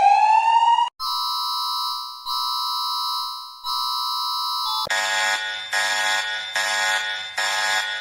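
Emergency alert tones. A rising siren sweep cuts off about a second in, and a steady chord of electronic tones follows, sounding three times for about a second each. From about five seconds in, a harsher buzzing alarm tone pulses a little faster than once a second.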